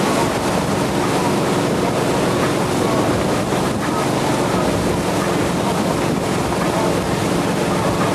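Centurion Typhoon tow boat's engine running steadily at speed, with water rushing in the churning wake and wind on the microphone.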